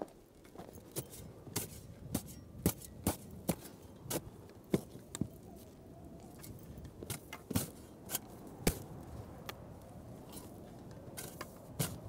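Footsteps on dry, sandy desert ground among scrub brush: a sharp crackle or snap with each step, about two a second at first, then more scattered, over a faint rustle.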